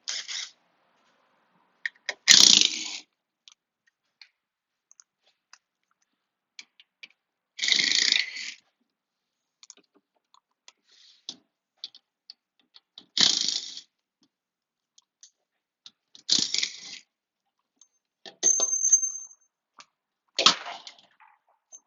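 Short bursts of metallic clicking and clinking from hand tools and bolts while the bolts of the car's underbody shield are taken out, about six of them a few seconds apart, with one brief high squeak about two-thirds through.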